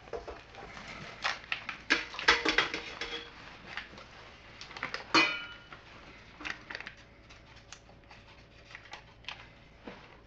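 Kitchen utensils and dishes clinking and knocking while ingredients are handled: a quick run of clatters about two seconds in and a single ringing clink about five seconds in, then scattered lighter taps.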